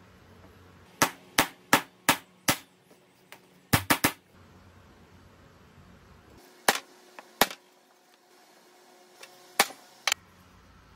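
Hammer driving nails into a wooden block: five quick, even blows about a second in, a rapid group of three around four seconds, then a few single blows spaced out toward the end.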